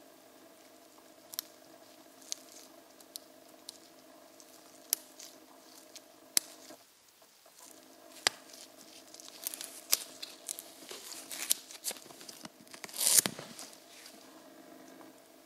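Sharp clicks and taps, a second or so apart at first and then coming thicker, with a louder noisy burst near the end, over a steady low hum that drops out briefly midway.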